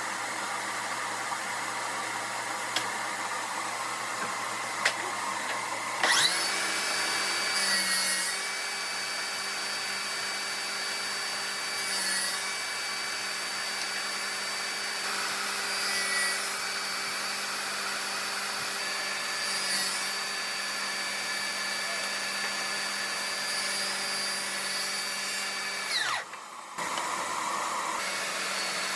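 A high-speed electric power tool motor spins up about six seconds in and runs with a steady high whine. It swells briefly about every four seconds as it works the wood, then winds down with a falling pitch near the end. A steadier machine hum runs under it at the start.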